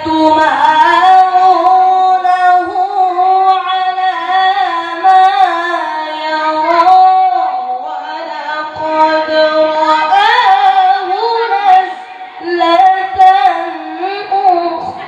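A boy's high voice reciting the Qur'an in melodic tilawah style, holding long ornamented notes that glide up and down between phrases, with two short pauses.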